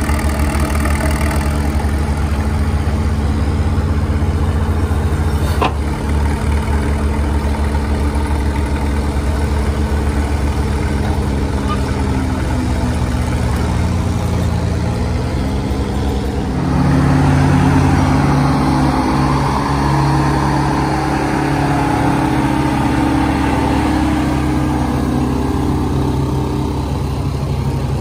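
Engine of an antique Lorain cable-operated backhoe running as it digs; its note sags about halfway through, then it pulls louder and higher from about two-thirds in, as the machine takes load.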